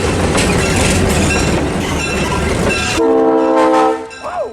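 A train passing close by with loud rumbling rail noise. It cuts off abruptly and is followed by a steady, multi-tone locomotive horn blast lasting about a second.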